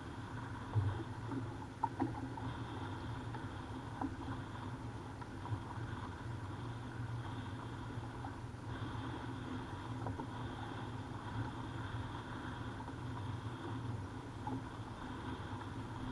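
Steady outdoor noise of water against a fishing kayak, with a few light knocks in the first few seconds.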